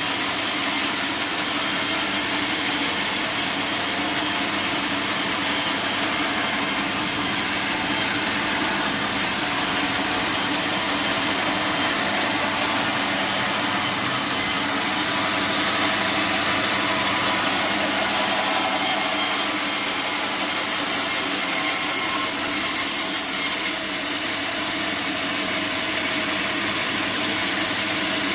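Sawmill bandsaw blade cutting through a teak log: a steady, unbroken sawing noise over the machine's running hum. The high hiss of the cut shifts abruptly about halfway through and again near the end.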